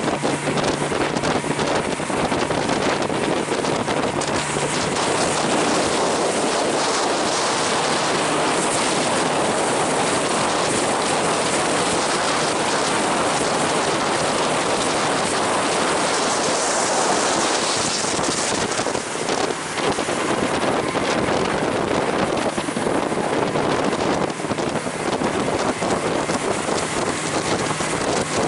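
Motorboat running at speed: a steady rush of wind on the microphone and water and spray against the hull, with a faint low engine hum beneath for the first few seconds.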